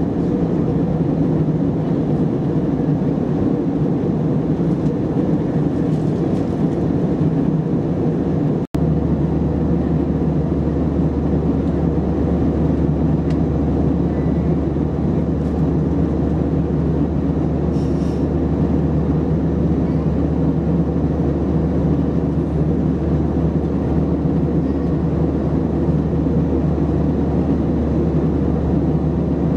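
Steady cabin noise of an Airbus A321-200 in cruise: a dense, even rumble of engines and airflow heard from a window seat, with a low steady hum. It cuts out for an instant about nine seconds in and resumes unchanged.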